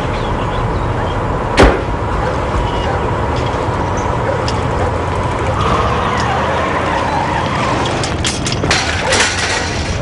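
A car door slams shut once, sharply, about a second and a half in, over the steady hum of a car and traffic; a few lighter clicks follow near the end.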